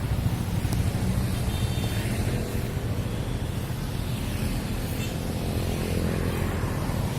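Motor vehicle engine running at a steady speed, a constant low rumble.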